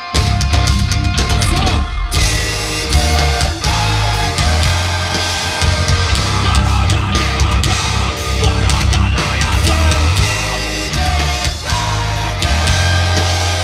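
Live rock band playing loud, with electric guitars and a heavy low end; the full band comes in suddenly right at the start.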